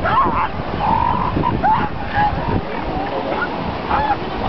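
Elephant seal colony calling: many short rising-and-falling calls from different animals overlapping one another, over a steady rush of surf.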